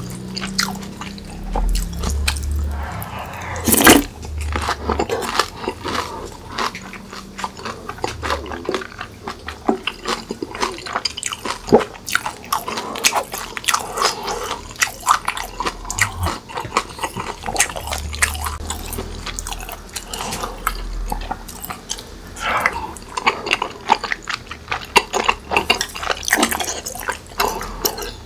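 Close-miked eating: wet chewing and smacking of saucy tteokbokki, a dense run of small irregular clicks with a sharp louder one about four seconds in. A low rumble of motorcycles outside rises and fades underneath a few times.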